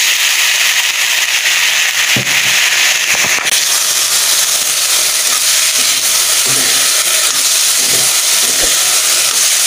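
Fresh fiddlehead fern shoots (niuro) sizzling loudly in hot oil in a steel pan, a steady hiss from the moment the wet greens go in. A steel spatula stirring them scrapes and taps on the pan a few times.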